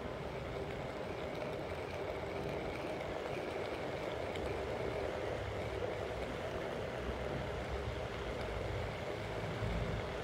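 Onewheel XR electric board rolling over asphalt: a steady hum from its hub motor and tyre, with wind buffeting the microphone, heavier in the last few seconds.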